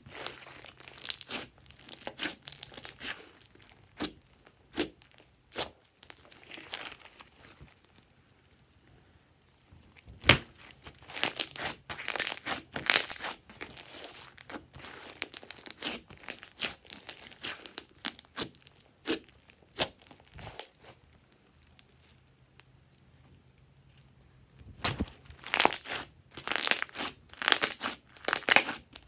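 Sticky glossy slime being kneaded, stretched apart and pressed flat by hand, making wet clicking and popping sounds in irregular bursts, with a couple of quiet pauses.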